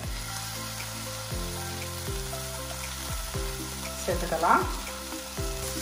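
Onions and capsicum sizzling in a steel pan, a steady hiss, with background music playing over it: sustained bass notes and a drum beat.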